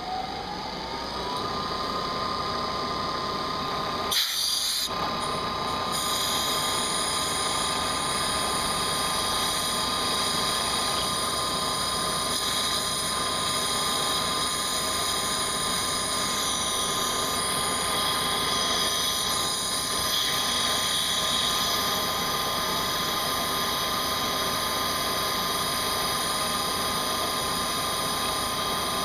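CNC milling machine spindle spinning up with a rising whine that levels off about a second in, then running at steady speed with a high-pitched whine and steady cutting noise. A brief sharp sound about four seconds in.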